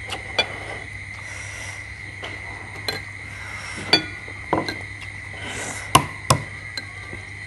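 Tableware clinking during a meal: spoons and eggs knocking on ceramic plates and bowls in scattered sharp clicks, the loudest about four and six seconds in. A steady faint high-pitched whine runs underneath.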